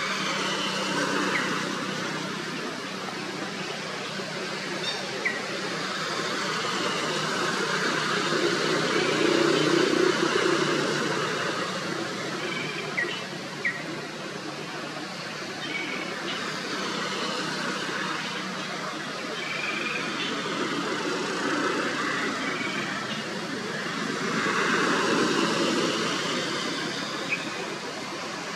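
Outdoor background noise: a steady rush that grows louder about ten seconds in and again near the end, with a few faint short chirps.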